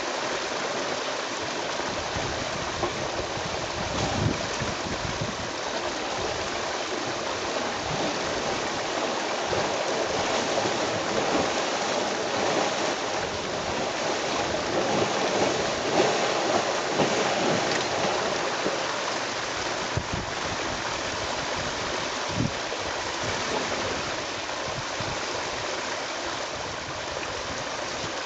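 Steady rain, an even hiss of falling water without a break, with a soft knock about four seconds in.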